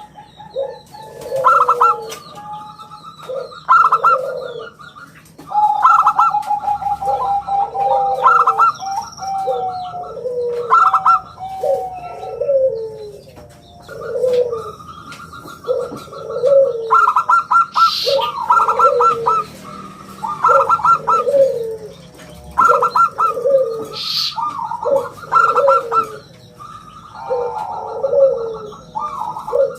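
Local zebra dove (perkutut) singing steadily: round, cooing phrases repeated about every second or so, interleaved with higher rapid chirping notes.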